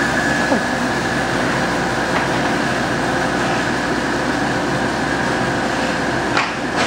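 Foam convoluter (eggcrate foam profile cutting machine) running steadily, a continuous mechanical rattle with a steady high whine. A few sharp clicks come near the end.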